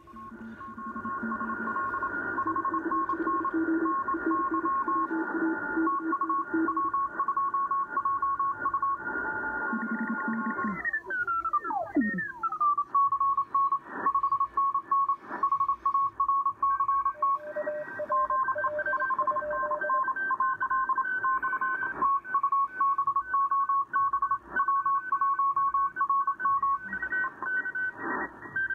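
Several Morse code (CW) signals keying at once from a Kenwood TS-590SG transceiver's speaker on the crowded 40-metre band: overlapping on-off beeping tones at different pitches. About eleven seconds in, the radio is retuned and the tones glide downward before a new set of signals settles in.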